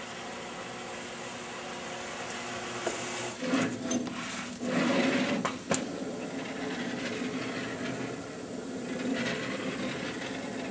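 PVA 1000 conformal coating dispenser running: a steady machine hum, a brief hiss about three seconds in, then a louder motor whine with a few clicks as the dispensing head moves across the board, tracing a circle.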